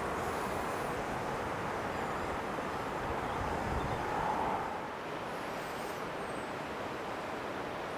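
Steady rush of a mountain stream's water, a little quieter from about five seconds in.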